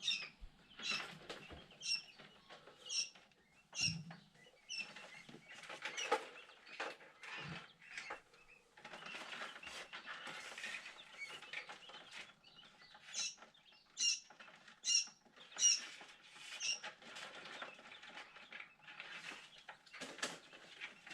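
Quail chicks peeping: short, high peeps about once a second over rustling and scratching.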